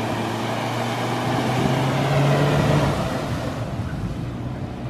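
Vehicle engine revving as it pulls free of the flooded ground where it was stuck, getting louder and higher about two seconds in, then fading as it drives off.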